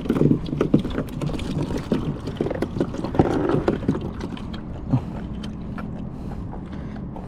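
Scattered knocks and clatter of gear being handled on a kayak, with a busier spell of rustling and knocking about three seconds in.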